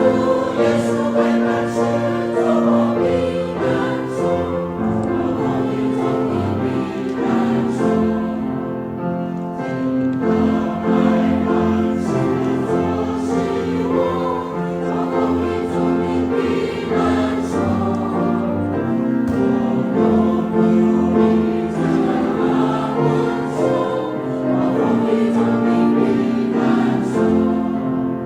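A senior church choir singing a hymn, voices held in long sustained notes.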